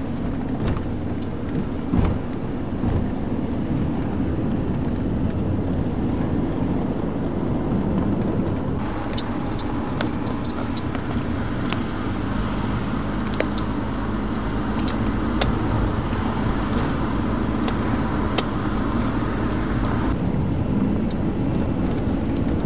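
Steady engine and road noise of a car being driven up a mountain road, with a few light clicks.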